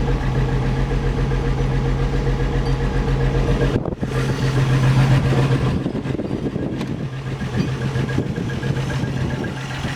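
The freshly rebuilt straight-six engine of a 1963 Rambler American idling steadily on its first run after the rebuild, with a low, even hum that eases slightly about six seconds in.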